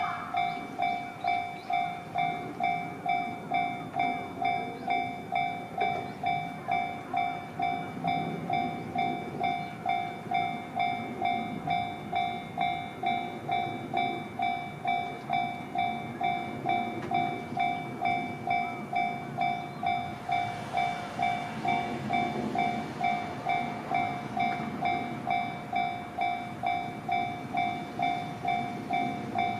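Level-crossing warning bell ringing steadily, about one and a half strokes a second, while a train runs past on the rails with wheel-on-rail rumble and clatter that grows louder about two-thirds of the way through.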